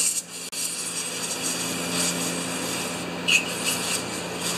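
Aerosol solvent sprayed from a can through its red extension straw into the passages of a Tecumseh small-engine carburetor: a steady hiss of spray.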